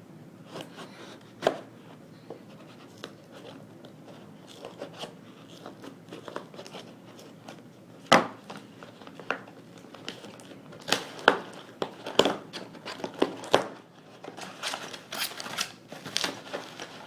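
A package being opened by hand: packaging crinkling and tearing, with scattered sharp clicks and knocks of handling. The loudest knock comes about eight seconds in, and the handling grows busier in the second half.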